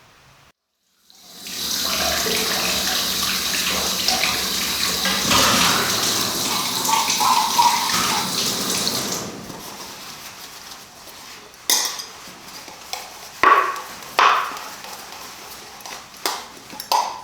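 Water running hard from a tap into a sink for about eight seconds, then shut off, followed by a few sharp knocks and clinks of dishes being handled.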